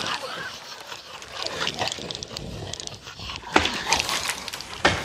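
Film sound effects of giant spiders clicking and chittering. Two sharp, loud clicks stand out, about three and a half seconds in and again near the end.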